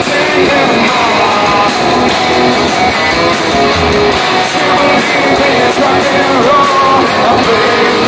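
Rock band playing live at full volume, electric guitars to the fore, with some singing, recorded from the crowd.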